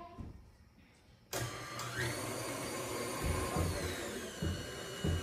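Electric stand mixer switched on about a second in, its motor whirring steadily as it mixes cake batter in a steel bowl. A little past halfway its whine glides down in pitch.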